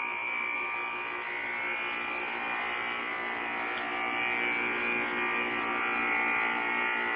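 Air conditioner running with a steady buzzing hum and several steady tones from the compressor and fan.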